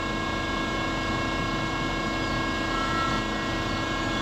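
An old ship's deck crane's hydraulic system running steadily under joystick control. It makes an even mechanical drone with several steady whining tones, and a brief higher whine about three seconds in.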